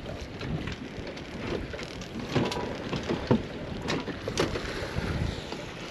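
Wind and water noise aboard a small open boat on choppy water, with a few sharp knocks on the hull or deck scattered through the middle.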